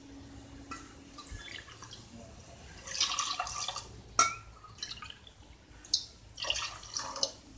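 Water poured from a steel bowl into a pressure cooker of thick curry, splashing in several pours, with a sharp metal clink about four seconds in and smaller ones later.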